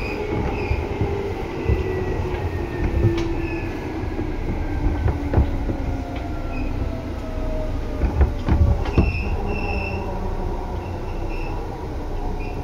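Seibu 2000 series electric train (set 2057F) running at speed, heard from on board. A loud rumble has a motor whine gliding down in pitch over the first few seconds, and wheels knock over rail joints, most heavily about eight to nine seconds in, with brief squeals.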